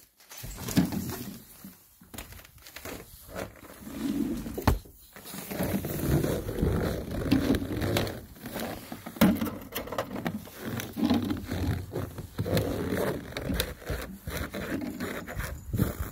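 Footsteps crunching and scraping through packed snow, uneven and continuous, with rustling from the phone being carried.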